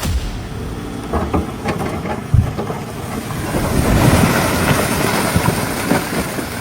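Heavy machinery working: a rumbling engine-and-track noise with scattered clanks and knocks, the loudest one about two and a half seconds in.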